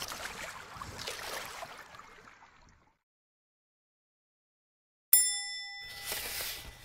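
Splashing water fading away over the first couple of seconds. About five seconds in, a bright bell-like ding rings for under a second, followed by a short hiss of water.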